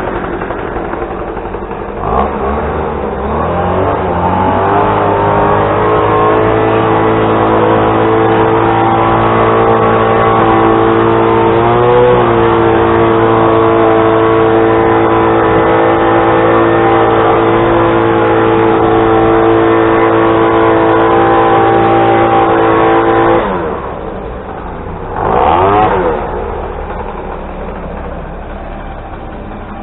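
An engine speeds up about two seconds in and runs steadily at high speed for about twenty seconds. It then drops back to a lower speed, revs briefly once, and settles at the lower speed.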